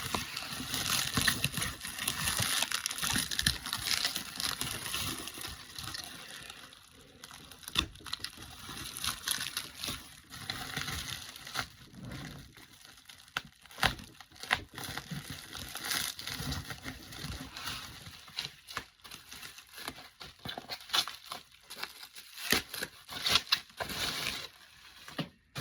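Paper bubble wrap (packing paper) being pulled off and crumpled by hand, rustling and crinkling with many small crackles. It is busiest in the first few seconds, thins out in the middle, and picks up again near the end.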